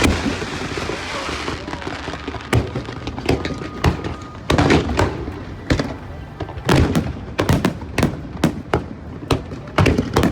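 Aerial fireworks shells bursting in quick, irregular succession, many sharp bangs close together.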